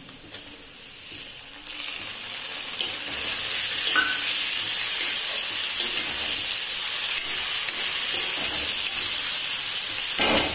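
Chopped tomatoes sizzling in hot oil in a steel kadhai with fried onions, the sizzle building up over the first few seconds as they go in and then holding steady. A steel spatula stirring in the pan adds a few brief clinks and scrapes.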